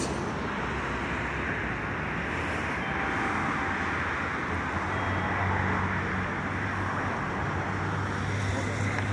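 Steady city street traffic noise, with a low engine hum that comes up about halfway through.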